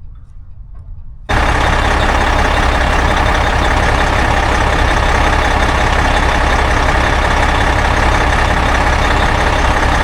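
Semi truck's diesel engine running steadily and loud, close up, with a heavy low rumble; it comes in suddenly about a second in.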